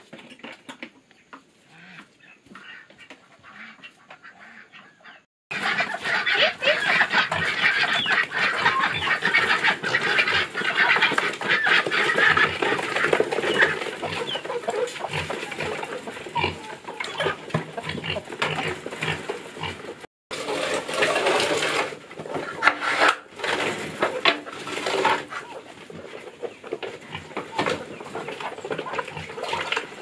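A crowd of farm animals, chickens and pigs, calling many at once. Only faint small knocks for the first five seconds, then the calling starts abruptly and runs loud, with a brief break about twenty seconds in.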